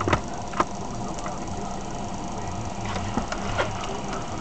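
Steady hum of an idling car heard inside its cabin, with irregular sharp ticks and clicks scattered through it.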